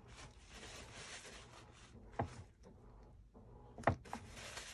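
Faint rustling of a paper towel being dabbed and rubbed over a waterslide decal in a silicone mold, with two short light knocks about two and four seconds in.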